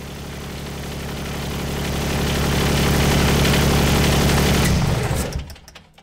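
An engine running with a rapid low pulsing. It grows louder over the first three seconds, holds steady, then drops away sharply near the end and fades out.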